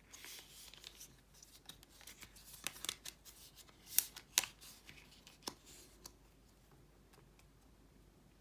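An iPhone being fitted back into its phone case by hand: scattered light clicks and rubbing, the sharpest clicks about four and five and a half seconds in, stopping about six seconds in.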